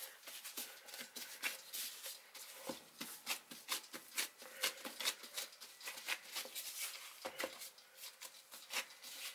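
Gloved hands pressing and stretching soft bread dough out flat on a floured stone countertop: a run of faint, irregular pats and rustles, a few a second.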